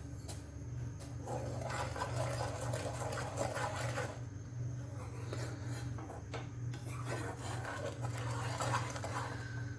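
A spoon stirring and scraping in a pan of heating milk, cream and sugar: an on-and-off rubbing sound with a few light clinks, over a steady low hum.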